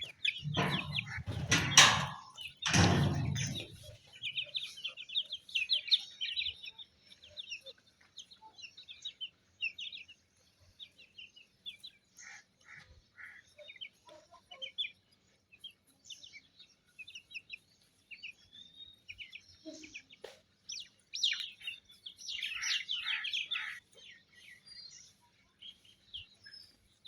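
Chickens chirping and clucking in many short, high calls. A few loud rustling bursts come in the first few seconds.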